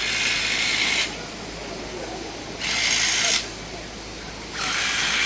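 Cicadas buzzing in three rasping bursts of about a second each, separated by short pauses, over a steady lower background hiss.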